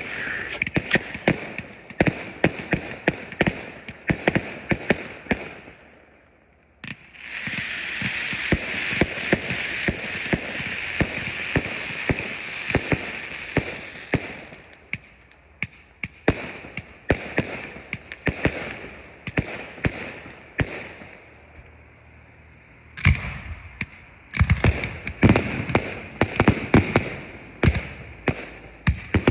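Consumer fireworks going off: a rapid string of bangs and crackles from aerial shells and a firework cake. The string breaks off about six seconds in, and then a steady hiss with crackling runs for about seven seconds. Scattered pops follow, and a dense run of bangs comes near the end.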